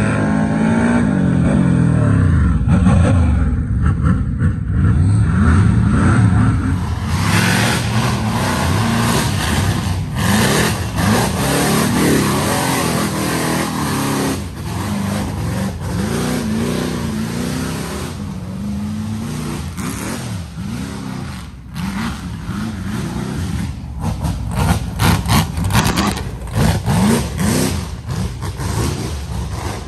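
Rock bouncer buggy's engine revving hard under load on a steep dirt hill climb, its pitch surging up and falling back again and again.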